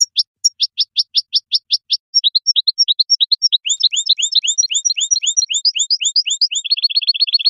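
A finch singing in runs of repeated notes: first a string of falling chirps about four or five a second, then changing phrases of paired notes, and near the end a fast trill.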